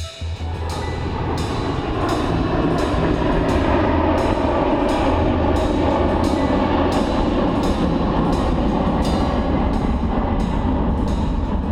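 Music with a steady drum beat over a dense, full backing.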